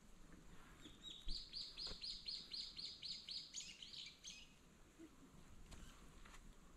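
A bird singing outdoors: a quick run of about fifteen short, high notes, roughly four or five a second, starting about a second in and stopping after about three and a half seconds.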